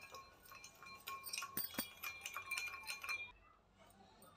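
Steel spoon stirring sugar into water in a glass bowl to dissolve it, clinking against the glass several times a second with each clink ringing briefly. The clinking stops about three seconds in.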